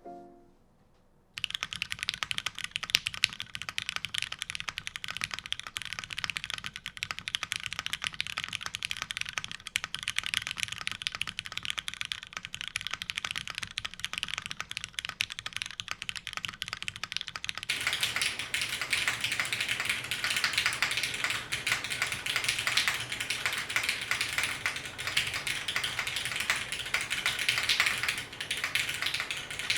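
Fast, continuous typing on a custom mechanical keyboard with lubed new-old-stock vintage Cherry MX Black linear switches in an aluminum plate, under GMK keycaps. The typing starts about a second in and turns brighter and louder about two-thirds of the way through.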